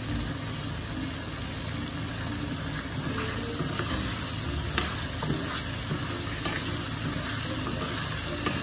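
Pork, squash and tomatoes sizzling in a pan as they are stirred with a spatula, with a few sharp knocks of the spatula against the pan in the middle.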